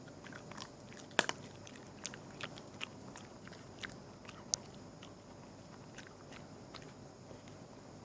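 A small animal gnawing and chewing food: irregular crisp crunches and clicks, the loudest about a second in and another just past the middle.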